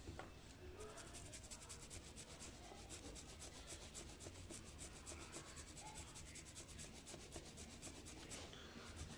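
Faint, fast rhythmic scrubbing on a phone's circuit board as corrosion and carbon dust are rubbed off the charging-port area with cleaner. It starts about a second in and stops shortly before the end.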